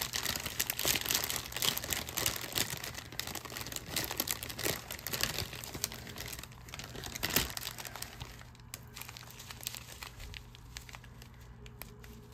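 Small plastic bags of diamond-painting drills being handled and shuffled, crinkling steadily, easing to fainter rustles after about eight seconds.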